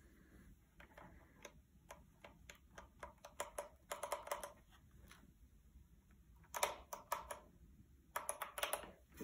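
Faint, soft key clacks in irregular quick flurries from an AKKO 5108S mechanical keyboard being typed on; its Jelly Pink linear switches are unlubricated.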